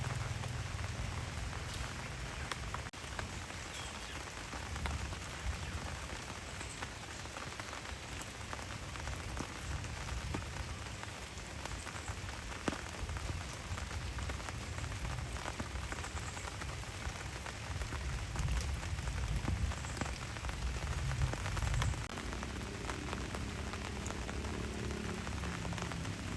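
Steady rain falling, with a continuous hiss and individual drops ticking sharply here and there.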